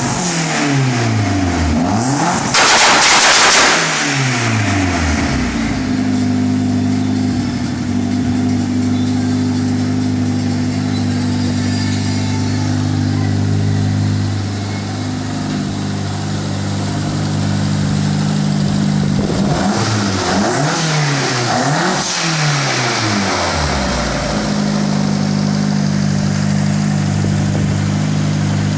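Turbocharged Fiat Brava engine revved up and down, then idling, with a loud burst of noise about three seconds in; blips of the throttle come again about twenty seconds in before it settles back to idle. The owner calls it a strange noise.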